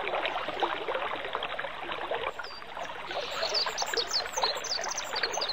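Nature ambience of trickling, running water. From about halfway in, short, high chirps sweeping downward in pitch repeat over it.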